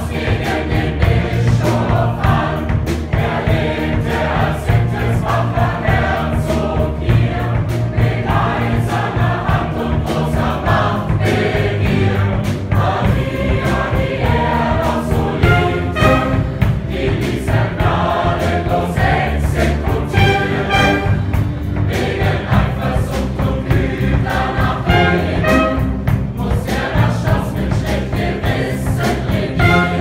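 Mixed youth choir singing with big band and orchestra accompaniment over a steady beat.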